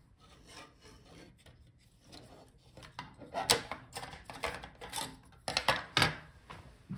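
Laptop heatsink and fan parts handled against a wooden desk: metal and plastic scraping and clicking, starting faint and becoming a run of sharp scrapes and clicks from about three seconds in.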